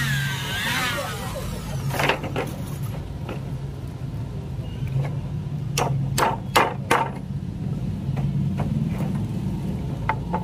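Electric hand drill whirring briefly at the start, then hammer blows driving nails through a wooden rung into a ladder rail: two strikes about two seconds in and four quick strikes around six seconds in, over a steady low hum.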